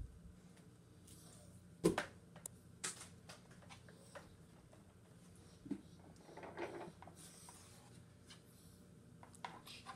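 Scattered clicks and knocks from handling a Bissell Big Green carpet cleaner's power cord and plastic body. The sharpest knock comes about two seconds in, and a short scuff follows a little past the middle.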